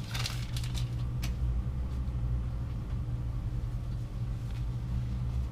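Steady low machine hum, with a few light clicks and knocks in the first second or so.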